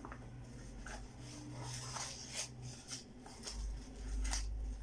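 Packaging of a small gift pouch rustling and crinkling as it is handled and pried open by hand, in several short separate crackles and scrapes, with a low rumble from handling near the end.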